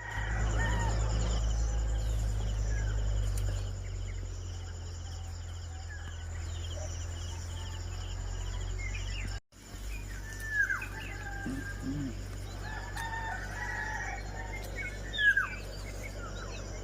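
Roosters crowing and chickens clucking over a steady trill of insects and a low rumble. The two loudest calls come about ten and fifteen seconds in, and the sound drops out briefly just before the first.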